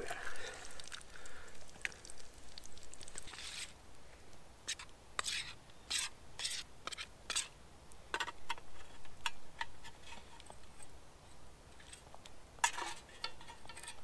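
A metal utensil scraping and clinking against camp pans and a plate as fried food is dished up, in short scraping passages among many sharp clicks.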